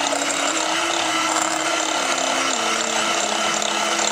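Electric hand mixer running steadily at speed, its twin beaters whirring through butter and icing sugar in a glass bowl while creaming the icing.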